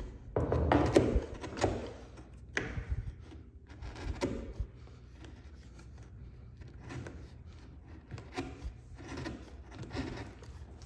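Bench chisel pushed by hand into kerfed hardwood, splitting off and prying out the waste to clear a half-lap notch: a series of short scraping, cracking strokes of wood splitting, the loudest in the first couple of seconds, then smaller ones with pauses between.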